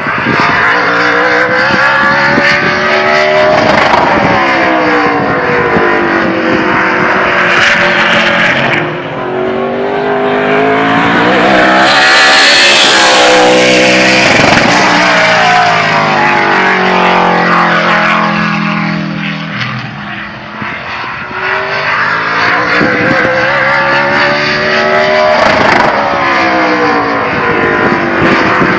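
An ARCA stock car's V8 engine at racing speed, its pitch climbing on each acceleration and dropping as it lifts and shifts through the corners. It is loudest as the car passes close by, about twelve to fourteen seconds in.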